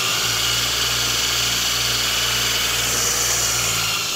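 Small electric power tool motor running at a steady whine while chalk is sharpened on it. It is switched off near the end and its pitch falls as it winds down.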